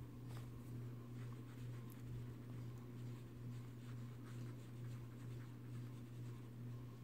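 A steady low hum, with faint, short scratches of a fine watercolor brush working on paper.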